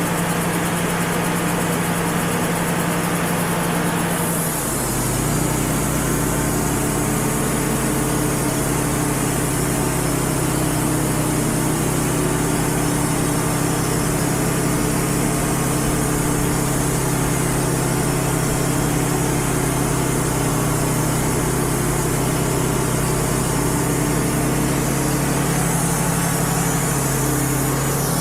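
Wood-Mizer LT35 portable band sawmill running steadily as it saws a red oak log. About four and a half seconds in the engine note drops and settles lower, and it shifts again near the end.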